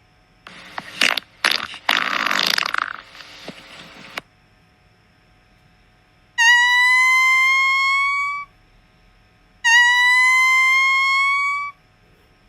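Fart sound effects: a sputtering, crackly fart from about half a second in until about four seconds, then two identical high-pitched squeaky toots of about two seconds each, rising slightly in pitch.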